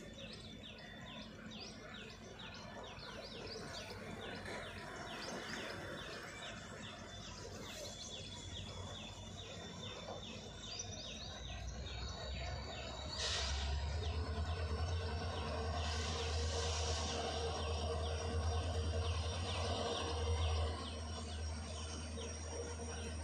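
Birds chirping in quick repeated notes, then about halfway through the low hum of an approaching WDP4D diesel locomotive's engine comes in and grows louder, joined by a steady whine.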